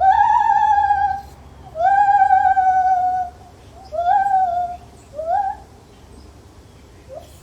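Lar gibbon calling: clear, pure-toned hoots, each rising quickly in pitch and then sliding slowly down. The first two are long, over a second each, and are followed by two shorter notes and a brief one near the end.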